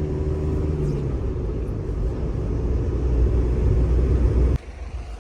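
GAZelle Next van's engine and road noise heard from inside the cab while driving, a steady low drone. It drops suddenly about four and a half seconds in to a quieter rumble.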